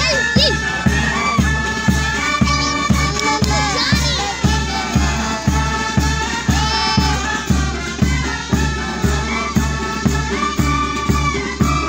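Marching band playing a march: a bass drum beating steadily about twice a second under a melody of held wind-instrument notes.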